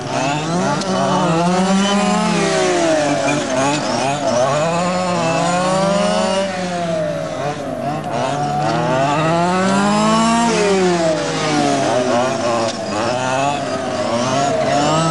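Several RC race cars' small two-stroke engines running together. Their overlapping pitches keep rising and falling as the cars accelerate and slow.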